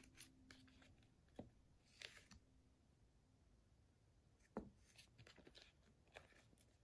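Near silence with faint scattered clicks and rustles and one soft knock about halfway through: a young vervet monkey handling food in a plastic tub and eating it.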